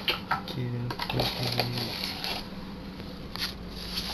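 Clicks and rustling from packing material being handled, with a muffled voice in the background about a second in.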